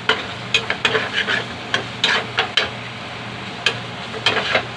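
Metal spatula scraping and tapping against a metal frying pan while stirring dried fish, tomato and egg, in irregular strokes with a pause of about a second midway. A soft frying sizzle runs underneath.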